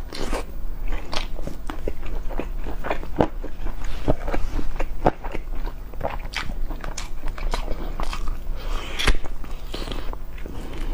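A person biting and chewing braised chicken wing drumettes, a close, irregular run of short clicks and smacks several times a second.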